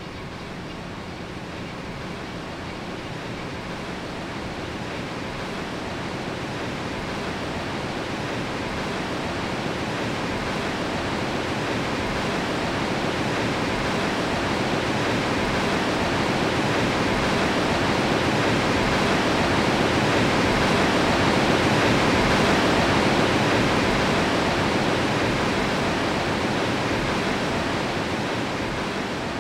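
Barnafoss waterfall: steady rushing white water that swells gradually to its loudest about three quarters of the way through, then eases off a little.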